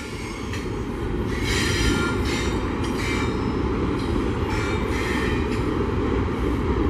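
Double-stack intermodal freight train's loaded well cars rolling past: a steady rumble of steel wheels on rail, with faint wheel squeal now and then.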